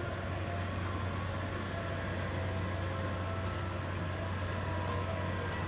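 Steady low engine drone with faint whining tones that drift slowly in pitch.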